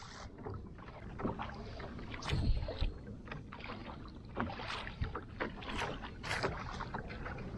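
Water sloshing against a fishing kayak's hull, with scattered clicks and knocks from the boat and gear and one heavier low thump about two and a half seconds in.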